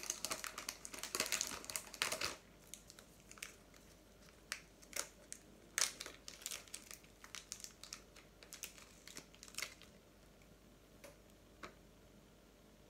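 Plastic wrapping crinkling under the hands while plasticine is handled. It is dense for the first two seconds, then breaks into scattered clicks and ticks until about ten seconds in.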